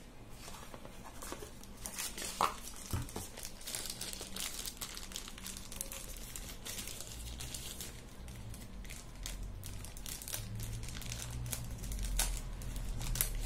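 Cardboard and plastic packaging crinkling and rustling as a small accessory box is opened and its wrapped contents handled, a dense run of small crackles.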